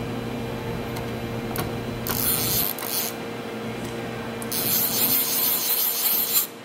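Fanuc Alpha T10A drill-tap machining center running through its cycle: a steady machine hum that drops away a couple of seconds in, then two bursts of hissing, the first about a second long, the second about two seconds, cutting off sharply near the end.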